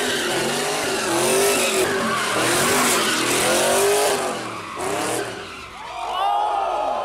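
A car engine revving hard while its tyres screech as it spins donuts, the revs rising and falling over and over. The revs drop back a little past halfway, then climb again near the end.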